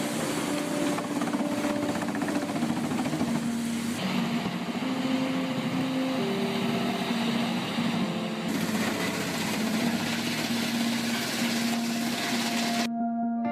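A heavy machine running steadily, its noise changing character twice and then cutting off suddenly near the end, with background music playing over it.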